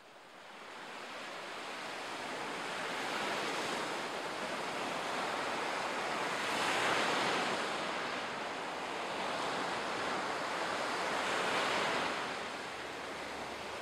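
Ocean surf washing onto a sandy beach, fading up over the first couple of seconds, then swelling and easing with each wave, loudest about seven seconds in.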